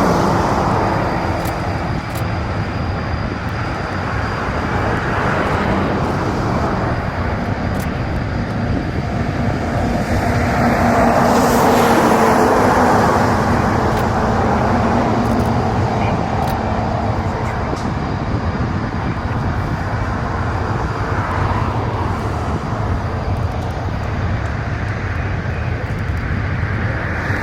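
Aircraft engine noise, a steady drone over a low rumble, swelling to a peak about halfway through as an aircraft passes and then easing back.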